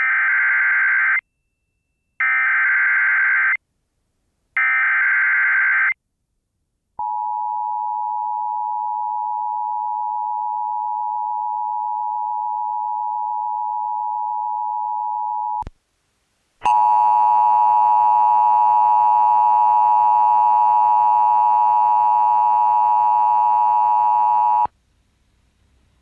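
Emergency Alert System broadcast from a Sage EAS Endec: three short bursts of screeching digital SAME header data, about a second each, then a steady single tone for about eight seconds, then a harsher, buzzier attention tone for another eight seconds.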